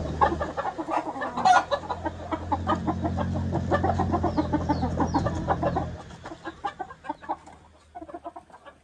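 Chickens clucking with many short, scattered calls. A low steady hum runs under them and stops about six seconds in.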